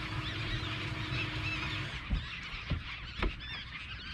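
A flock of birds feeding over schooling fish, calling in a continuous chatter of short high calls. Under it a low motor hum cuts out about halfway through, followed by three dull thumps.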